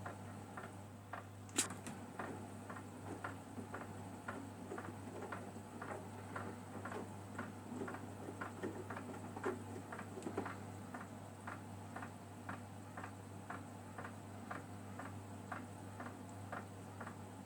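Samsung WW9000 (WW10H9600EX) washing machine running a cold Super Speed wash: a low steady hum with an even light ticking, about two to three ticks a second, and one sharper click about one and a half seconds in.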